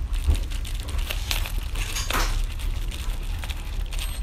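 Pen scratching across a shipping envelope in short irregular strokes as it writes, over a steady low rumble.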